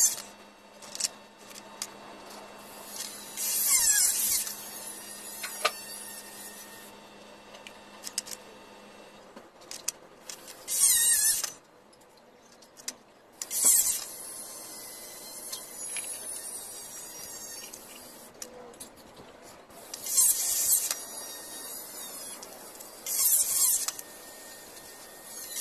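Small split-face wall tiles being pressed and slid into tile adhesive by hand: short, high-pitched scraping squeals come every few seconds, with light clicks and taps of tile on tile between them.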